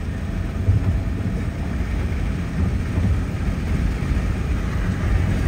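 Steady low rumble of a Saab 9-3 Aero's engine and road noise heard from inside the cabin while driving at speed, with no clear rise or fall in revs.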